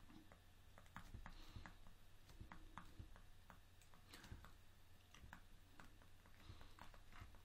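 Near silence with faint, irregular clicks and taps of a stylus writing on a pen tablet, over a faint low hum.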